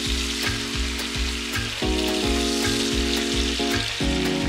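Butter and chicken thighs sizzling in a hot frying pan, a steady hiss, under background music with a steady beat.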